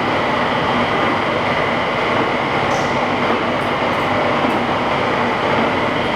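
National LB32-120 hollow-spindle oil-field lathe running smoothly, its spindle drive turning and the carriage moving under power feed. It makes a steady mechanical whirr with a faint, constant high whine.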